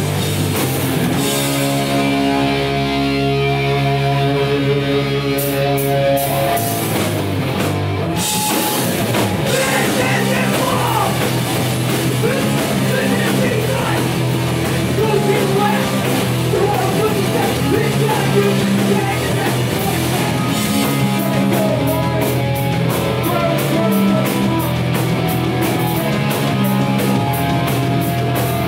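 Hardcore punk band playing live at full volume: distorted electric guitars, bass and drums. A held chord rings for a few seconds near the start, then the band drops into a fast, busy part.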